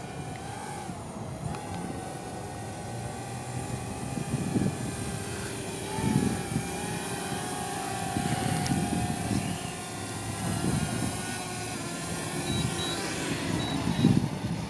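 DJI Mavic Mini quadcopter in flight, its propellers giving a steady whine that drifts slightly in pitch.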